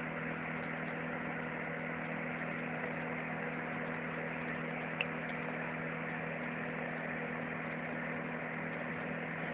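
Small electric fan heater running, a steady whir with a low electrical hum.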